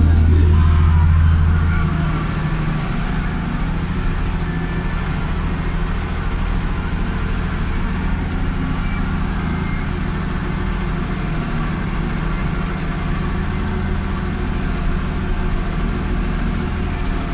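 Massey Ferguson 2640 tractor's diesel engine running steadily under ploughing load with a four-furrow plough, heard from inside the cab. The deep engine hum drops a little about two seconds in, then holds even.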